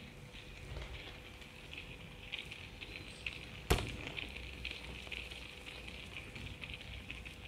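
Wooden ball sculpture rolling over wooden floorboards: a faint, continuous crackling rumble of small ticks, with one sharp click a little past halfway.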